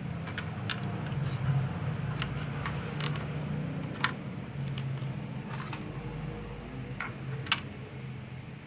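Irregular small clicks and taps, about a dozen over several seconds, from hands working on an opened laptop while its RAM is changed, over a steady low hum.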